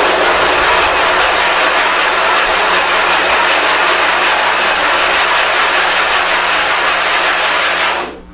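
A dry 1,000-grit water stone being scrubbed around a glass plate dusted with abrasive to flatten it: a continuous, loud gritty scraping that stops abruptly about eight seconds in.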